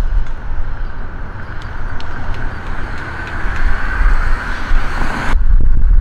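Road traffic going by: steady car and tyre noise that builds as a vehicle draws near, then cuts off suddenly about five seconds in.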